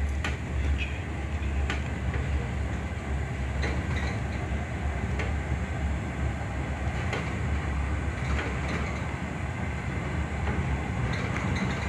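Diesel passenger train heard from inside the carriage as it pulls out and runs: a steady low rumble of engine and running gear, with irregular sharp clicks of the wheels over rail joints.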